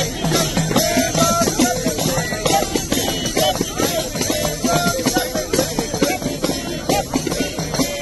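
Hand-held frame drums (dafli) beaten in a fast, even rhythm, with a group of voices chanting or singing along in unison.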